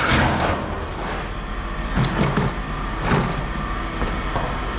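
Scrap metal pieces clattering as they are tossed down, with two crashes about two and three seconds in, over a steady low rumble.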